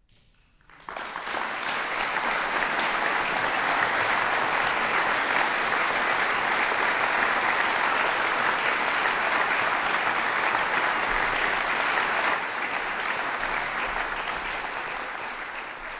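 Concert audience applauding, breaking out suddenly about a second in after a brief silence, holding steady, then easing off and fading near the end.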